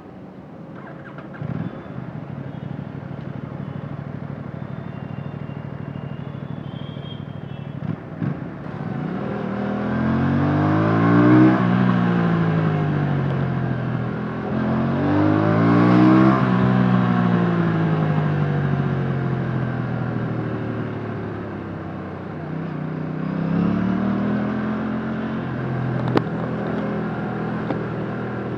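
2024 Aprilia RS457's 457cc parallel-twin engine through its stock exhaust, heard onboard while riding: running steadily at low revs at first, then revving up hard twice with the revs falling away after each pull, and a shorter rise near the end.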